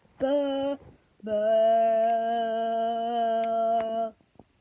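A voice humming steady held notes in imitation of an emergency alert tone: a short note, a pause, then one long note held for about three seconds.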